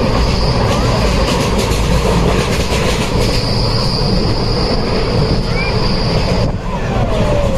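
Passenger train running, with a loud steady rumble and rattle of the carriage on the rails. A high thin wheel squeal is heard up to about a second in, and again from about three seconds in until shortly before the end.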